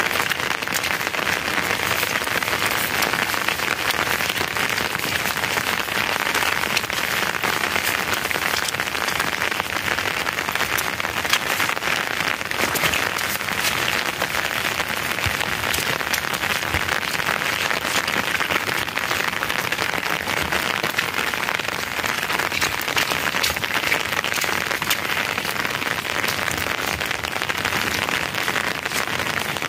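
Steady, dense patter of many small ticks over an even hiss, unbroken throughout.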